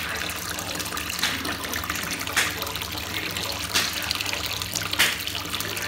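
A hand swishing through bath water and lifting out the soft, half-dissolved remains of a bath bomb, with several splashes over a steady watery hiss.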